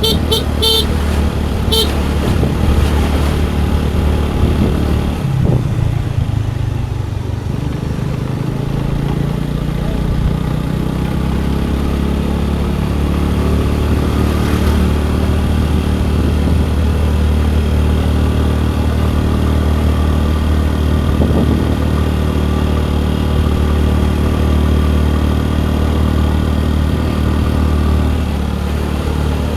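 Scooter engine running on the road with a steady low hum. A vehicle horn toots several short times in the first two seconds. The engine note drops and shifts around five to eight seconds in, then settles again.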